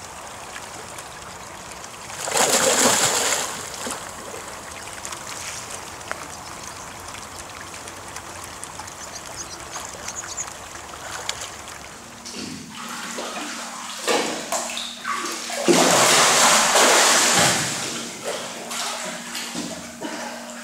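A person wading and swimming fully clothed sets off a loud splash about two seconds in, then softer water noise as she swims. Later comes splashing and sloshing in a small indoor pool over a steady low hum, with the biggest splash near the end.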